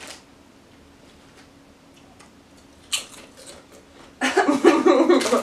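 Potato crisps being bitten and chewed: quiet at first, then a sharp crunch about three seconds in, then louder crunching mixed with a voice near the end.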